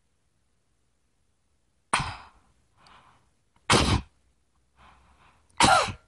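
A person coughing three times, about two seconds apart, with short breaths between, as an oral irrigator tip is held against her tonsil at the back of the throat.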